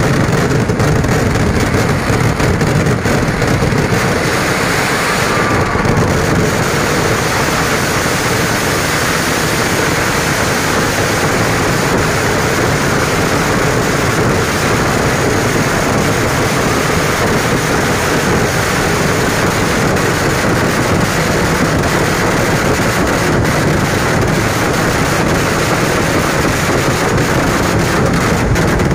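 Kerala temple-festival fireworks (vedikkettu) in a dense, unbroken barrage: rapid overlapping bangs so close together that they merge into one loud, continuous din.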